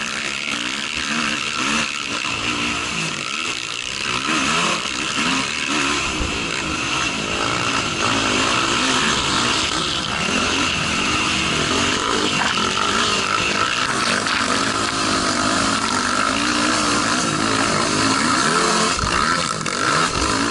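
Racing quad (ATV) engine heard from an onboard camera, its revs rising and falling again and again through the gears and corners, under a heavy rush of wind noise on the microphone.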